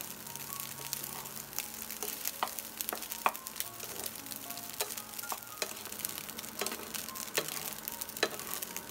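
Fried rice sizzling in hot oil in a nonstick pan while being stirred and tossed with a spatula, with a steady hiss and scattered light clicks and scrapes of the spatula against the pan.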